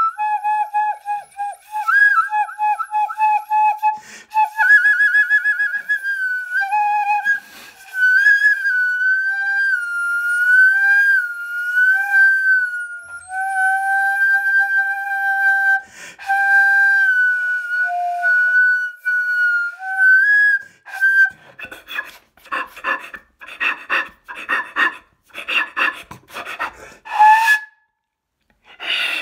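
Head joint of a disassembled soprano flute blown on its own, the player's other hand opening and closing over the open end to bend the pitch: wavering, sliding notes with fluttering and quick trills. About 21 seconds in it turns to a run of short, breathy air bursts without clear pitch, with one brief note near the end.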